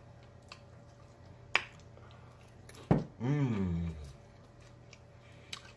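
Close-up eating sounds from chewing hot-sauced pork rinds: a few sharp mouth clicks and smacks. About three seconds in comes a hummed 'mmm' of enjoyment that falls in pitch over about a second.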